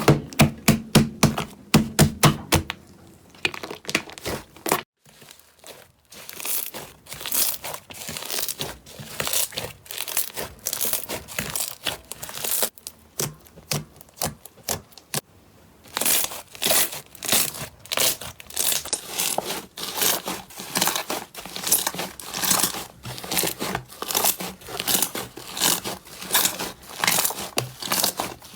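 Slime being squeezed and pressed by hand, giving a quick run of crackling, popping clicks, several a second, with two short pauses.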